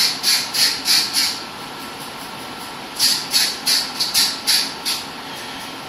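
Quick puffs of breath through the nose and mouth, about three a second, in two bouts of a second or two each, like stifled laughter.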